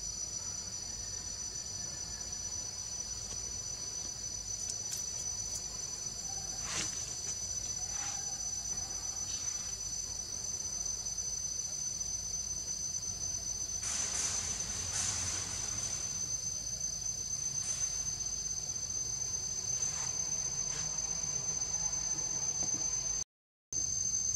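Steady high-pitched chorus of forest insects, a continuous shrill with a thin unwavering tone above it, with a few faint rustles. The sound drops out completely for a moment near the end.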